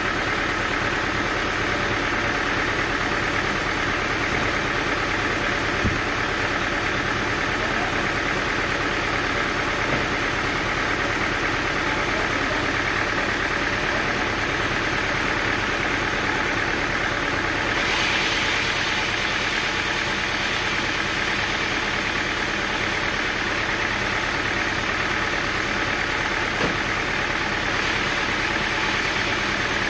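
Sawmill engine running steadily at a constant speed; about eighteen seconds in, a higher hissing noise joins it and carries on.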